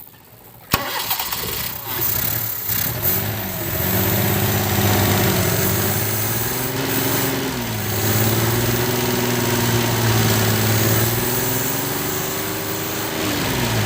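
A car's petrol engine with distributor ignition turned over by the starter about a second in and catching quickly, then running with its revs rising and falling; a start test for hard starting.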